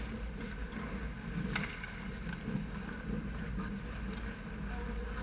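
Ice hockey rink during play: a steady low arena hum with skate scrapes on the ice and a few distant stick-and-puck clacks, the clearest about a second and a half in.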